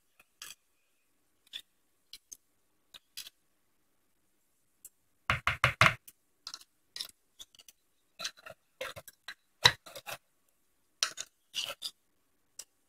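Scattered short clinks and scrapes of a utensil against a metal can and a bowl as chipotle peppers in adobo sauce are taken from the can, with a quick run of clinks about five seconds in.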